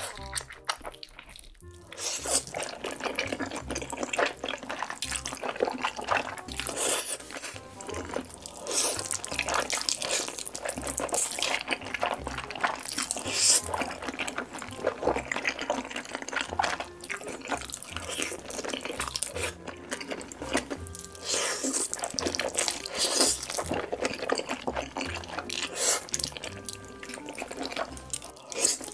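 Close-miked eating sounds: wet chewing, smacking and slurping of noodles, as dense irregular clicks and squelches. Background music plays underneath.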